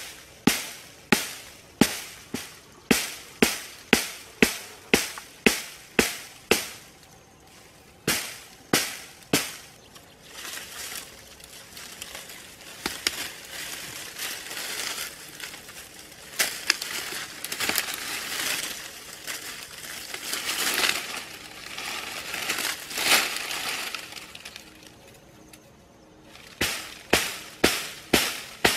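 A hand tool strikes into dry ground in a quick, regular rhythm of about two or three blows a second, as someone digs. In the middle stretch the blows give way to rustling and crackling of dry grass and brush, and the strikes start again near the end.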